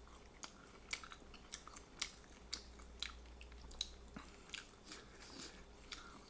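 A person chewing and biting into sauce-covered barbecue rotisserie chicken close to the microphone: irregular wet mouth smacks and small crunches of crispy skin, about two a second.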